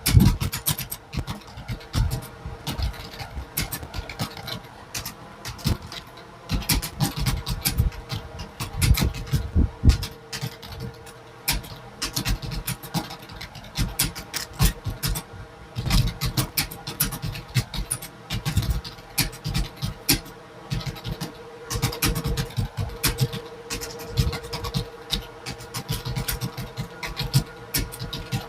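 Continuous fast typing on a computer keyboard, many key clicks a second with uneven loudness, over a steady hum.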